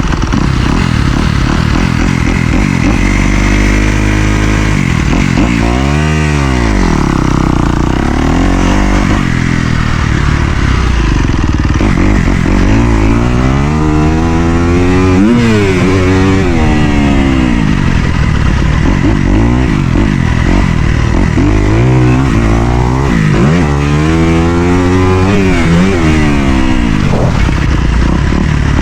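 Dirt bike engine revving up and dropping back over and over as the bike rides around the track, the pitch climbing and falling sharply several times.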